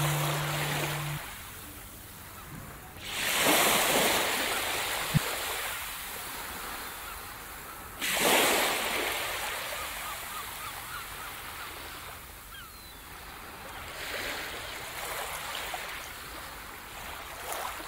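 Small waves washing up on a sandy beach. There are surges about three seconds in and about eight seconds in, and a softer one around fourteen seconds; each rises quickly and fades slowly. The last held note of music ends about a second in.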